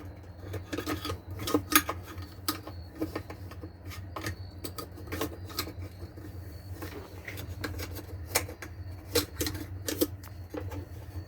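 Irregular clicks and light knocks of plastic and metal washer parts being handled and fitted together during a tub hub replacement, over a steady low hum.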